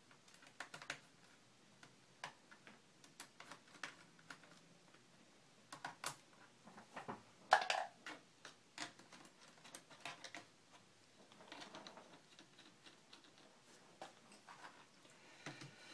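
Faint, irregular small clicks and taps of screws being worked out of a laptop's plastic screen bezel and dropped into a cup, with one louder click about halfway through.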